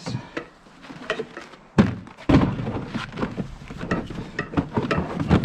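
Hard plastic Milwaukee Packout tool case set down on the stack with a thunk nearly two seconds in, followed by a run of knocks, rattles and clicks as the cases are shifted and latched together.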